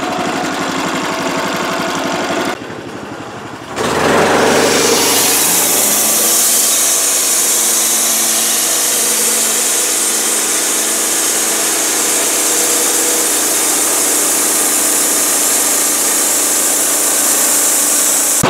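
Homemade bandsaw mill's 13 HP engine idling; about four seconds in it revs up and the band blade cuts into a log, a steady high hiss of sawing over the running engine.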